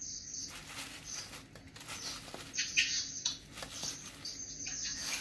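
A thin plastic bag rustling and crinkling in uneven bursts as boiled bitter balls are taken out of it by hand.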